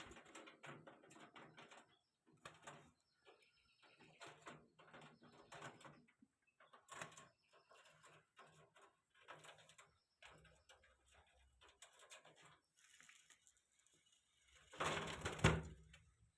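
Budgerigars chirping and chattering in short, irregular bursts, with a louder, noisier burst near the end.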